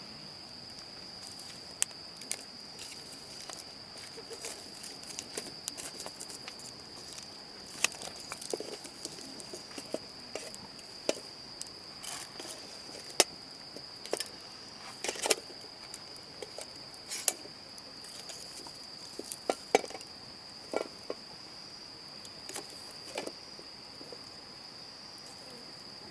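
Insects chirring in one steady high tone, with scattered sharp clicks and knocks over it.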